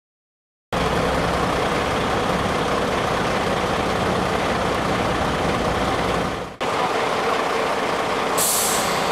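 Scania fire engine's diesel engine running, starting abruptly after a moment of silence, with a brief dropout about two-thirds through and a short sharp hiss of its air brakes near the end.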